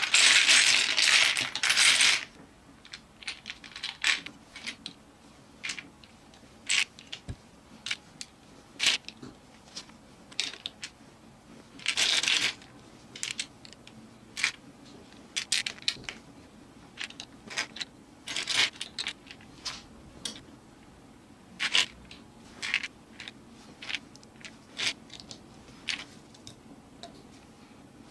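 Loose plastic building bricks rattling and clattering for about two seconds as hands spread a pile of pieces across a baseplate. Then come scattered sharp clicks and clacks as single pieces are picked up and pressed together, with another short rattle of pieces about halfway through.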